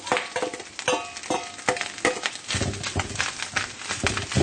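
A metal spatula clanking and scraping against a frying pan while fried rice is stir-fried with freshly added eggs. Each clank rings briefly, at about two or three a second, and about halfway through it gives way to denser scraping and stirring.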